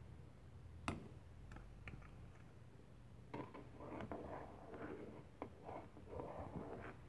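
Plastic spoon stirring thick chocolate rice porridge (champorado) in a cooking pot. The stirring makes soft, wet scraping, with a sharp tap about a second in and a few lighter ticks after it. More stirring sounds come in short patches through the second half.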